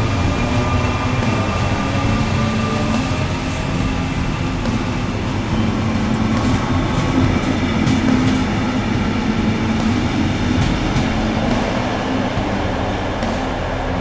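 Belgian SNCB electric multiple unit passing close by: steady rumble with a humming whine from its electric drive, and wheels clicking sharply over rail joints several times in the middle.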